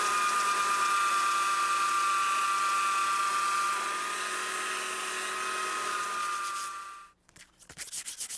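Upside-down mounted belt sander running steadily with a high whine as a maple leg is pressed against the belt, stopping about seven seconds in. A few short scratchy strokes of hand sanding follow near the end.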